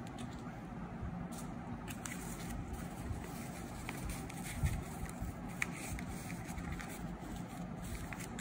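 Clear adhesive tape crinkling and rustling as cotton stuffing is pushed into a cloud-shaped tape squishy, with scattered small crackles and clicks over a steady low background hum.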